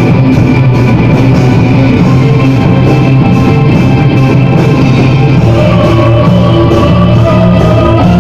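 Gothic metal band playing loud, with distorted electric guitars and drums; a wavering held melody line comes in about halfway through.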